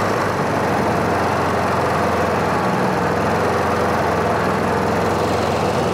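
Briggs & Stratton P3000 inverter generator running steadily at close range; its engine note shifts a little as it is switched into eco mode.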